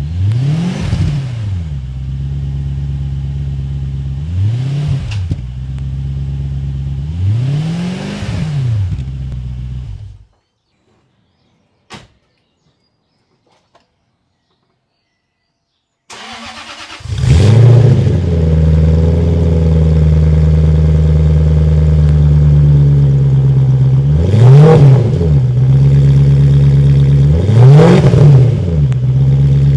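Jaguar XK8 4.0 V8 on an aftermarket Adamesh exhaust, running with three quick throttle blips that rise and fall in pitch. It then cuts to silence with a single click. About 16 seconds in, the engine cranks and catches, settles into a loud idle and is blipped twice more.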